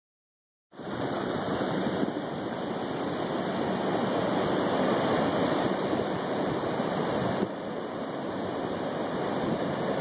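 Steady rush of ocean surf breaking on the beach, cutting in abruptly just under a second in and dropping slightly in level about seven and a half seconds in.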